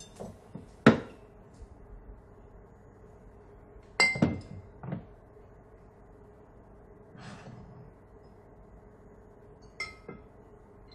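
Glass bottles clinking against each other on a wooden cabinet shelf as a bottle is pulled out from among them. A sharp knock about a second in, a cluster of clinks with a brief ringing note around four seconds in, and another ringing clink near the end.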